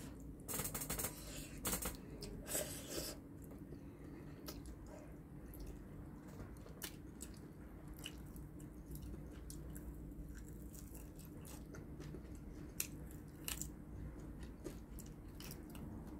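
A person eating up close: slurping spaghetti noodles in the first three seconds, then biting and chewing burnt fried chicken, with scattered sharp wet mouth clicks.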